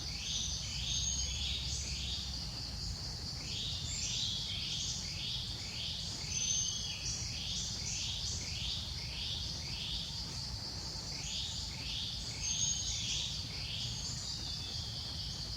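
Insects droning steadily with a high, even tone, while birds chirp in quick repeated series of short notes that slide down in pitch, over a low background rumble.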